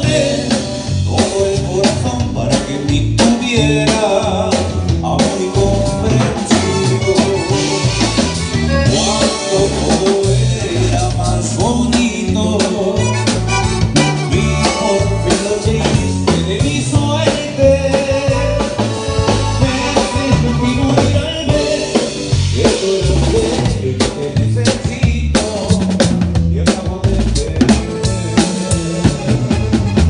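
Live band playing through PA speakers at a sound check: drum kit with bass drum, snare and rimshots driving a steady beat under electric bass and acoustic guitar.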